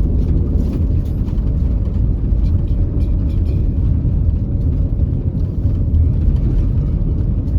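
A car being driven: a steady low rumble of road and engine noise.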